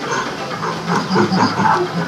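Recorded gorilla calls played for the Rainforest Cafe's animatronic gorillas: a rapid series of pulsed calls, about five a second, louder in the second half, over a hissy background.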